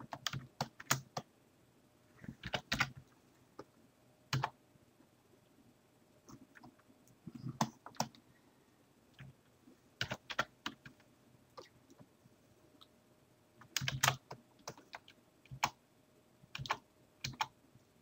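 Computer keyboard keys pressed in short irregular clusters of clicks, with quiet gaps between.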